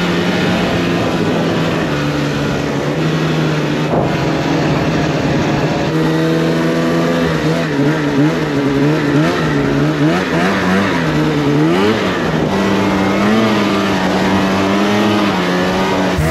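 2019 Polaris RMK 600 snowmobile's two-stroke twin engine running under way. It holds a steady pitch for about six seconds, then rises and falls again and again as the throttle is worked.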